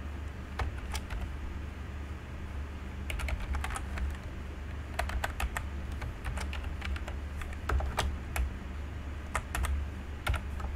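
Typing on a computer keyboard: irregular runs of keystroke clicks, busiest from about three seconds in, over a steady low hum.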